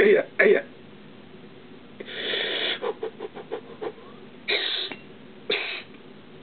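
A man breathing through the pain while rolling a dumbbell along his shin: a short vocal sound at the start, a long exhale about two seconds in, then two short sharp breaths near the end. Between them comes a quick run of small clicks.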